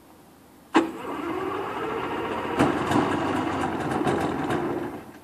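The Rotax 582 two-stroke engine of a Fly Synthesis Storch ultralight being turned over by its starter on a cold start for about four seconds, with a few irregular pops as it tries to fire. It stops suddenly without running on.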